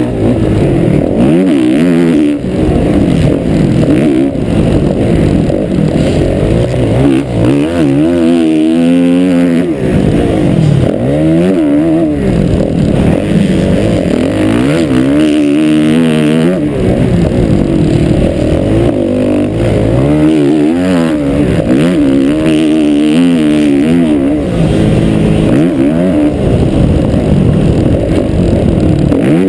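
Motocross bike engine heard close from an onboard camera at racing pace, its revs rising and falling over and over as the rider accelerates, shifts gear and backs off.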